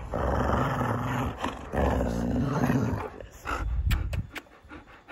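Alaskan Malamute growling low and long while play-biting: two drawn-out growls, then a shorter one about three and a half seconds in.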